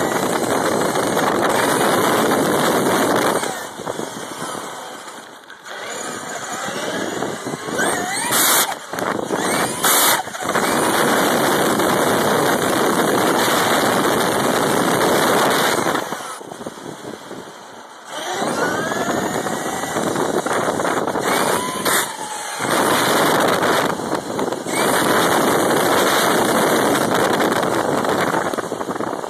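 Traxxas Revo radio-controlled monster truck driving hard, heard from a camera riding on it: a loud rushing run with rising whines as it speeds up. It eases off three times before picking up again.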